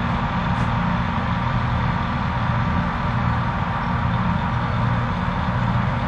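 Combine harvester running while cutting soybeans: a steady low engine drone under a constant hiss.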